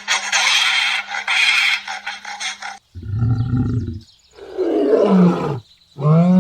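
A large wild animal roaring in deep, pitched calls: a short low call about three seconds in, then a longer call that falls in pitch, then a third that rises and falls. A noisy, chattering stretch of other calls fills the first few seconds.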